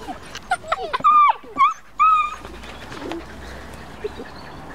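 Afghan hound puppy whimpering: a run of short, high whines and yelps over the first two seconds or so, a couple of them held briefly.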